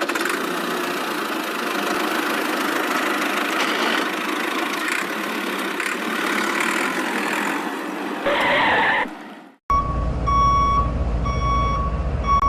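A steady, noisy machine sound for about eight seconds, then a short louder burst and a brief cut. Near the end a vehicle's reversing alarm beeps at an even pace over a low engine rumble.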